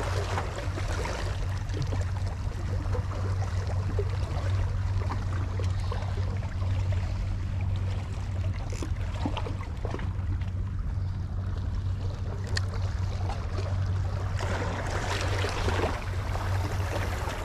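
Small waves washing against shoreline rocks, with a steady low hum underneath. The wash swells near the start and again toward the end.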